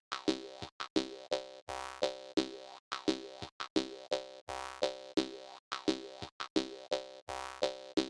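Jaw harp music: a rhythmic, twanging plucked tune, about three twangs a second.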